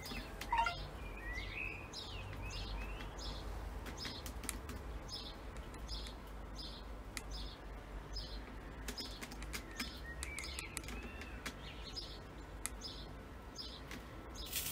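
Small birds chirping, short high chirps repeated about twice a second with a few sliding whistled notes among them, over a steady low rumble.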